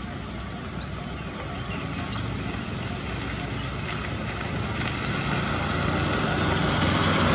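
Steady outdoor vehicle noise, a low engine hum that grows louder toward the end. Three short rising chirps, high-pitched, sound over it about a second apart, then a few seconds apart.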